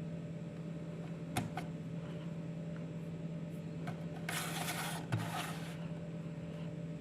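Steady low hum with a few light clicks, and a brief rustling burst about halfway through that ends in a soft thump.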